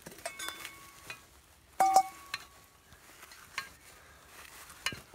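Metal camp cookware clinking as food is stirred in a pan: a run of sharp clinks with short ringing tones, the loudest a ringing double clink about two seconds in.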